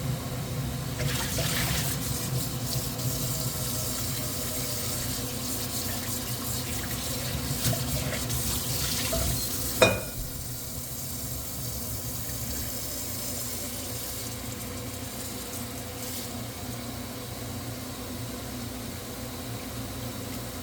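Kitchen tap running into a sink, water splashing for several seconds. A sharp knock about ten seconds in, after which the water dies down and a steady low hum remains.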